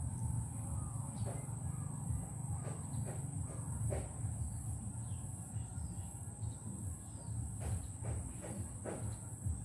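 Steady high insect trilling, with scattered short bird calls and a low background rumble. A few faint clicks come at irregular moments.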